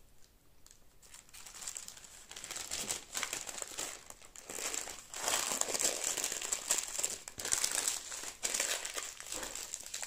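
Parchment paper crinkling and rustling as hands fold it around a stuffed pita wrap. It starts softly about a second in and grows louder about halfway through.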